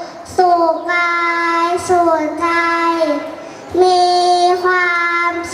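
A young girl singing solo into a microphone, holding long, steady notes with short breaks between phrases.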